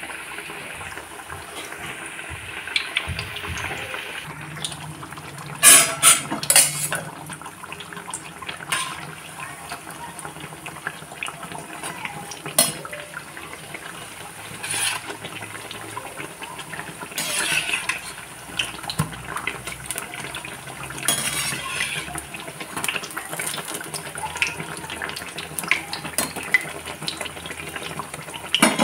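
Malpua batter pancakes deep-frying in a kadhai of hot oil: a steady sizzle and bubbling. A metal slotted spoon clinks and scrapes against the pan now and then, loudest in a quick cluster about six seconds in.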